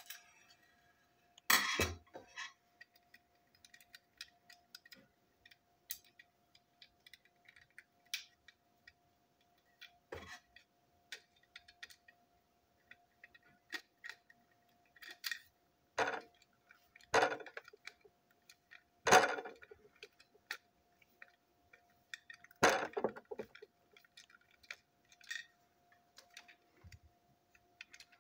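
Plastic toy train coach being handled and put back together: small clicks and taps of the body, chassis and wheels, with several louder knocks as parts snap or bump together. A faint steady hum sits underneath.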